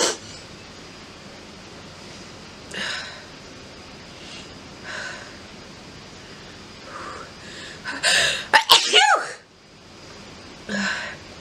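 A woman sneezes once, loudly, about eight seconds in: a burst with a voiced cry that rises and falls in pitch. The sneeze is set off by pepper sniffed from roses. A few short, softer breaths come before and after it.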